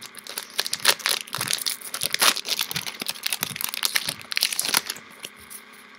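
Foil booster-pack wrapper crinkling and crackling as it is torn open and handled, in a dense run of irregular crackles that dies down about five seconds in.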